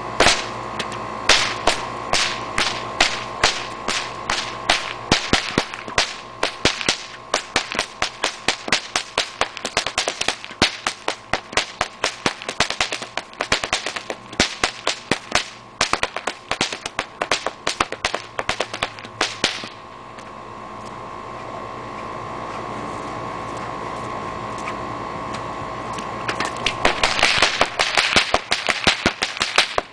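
Two whips cracked one in each hand, sharp cracks coming several times a second for about twenty seconds. After a pause of several seconds, a faster flurry of cracks comes near the end.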